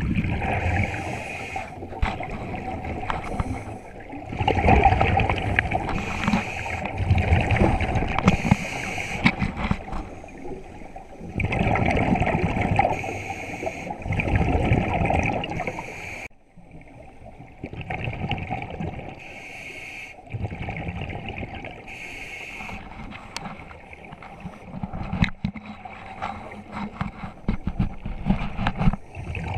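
Scuba diver breathing through a regulator, heard underwater: exhaled bubbles gurgling and rushing in surges a few seconds long, with quieter stretches between.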